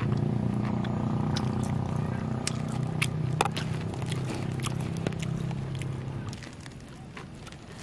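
Thin plastic bag crinkling in many short crackles as fingers dig into it. A steady low hum runs underneath and fades away about six seconds in.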